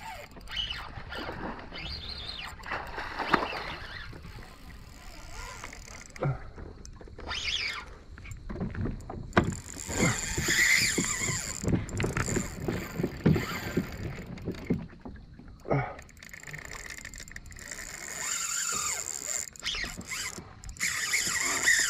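A hooked fish being fought from a plastic kayak: a spinning reel being wound against the pull, with water and handling knocks on the hull. A thin high whine comes and goes twice, in the middle and near the end.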